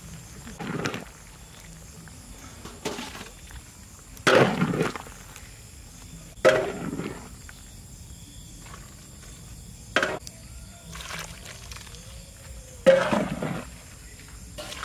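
Metal ladle clanking against a large steel wok and pouring soup into a steel basin. There are about six separate knocks and splashes, one every one to three seconds.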